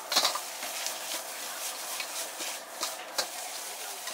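Metal ladle scraping and clanking against a wok as fried noodles are stirred and tossed: a few sharp scrapes, the loudest just after the start, over a steady hiss of frying.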